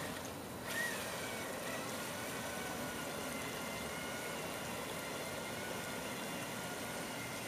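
Steady whine of a model paddlewheel towboat's small electric motor, taken from a 7.2-volt cordless drill, running at a distance over a continuous hiss of water and outdoor noise.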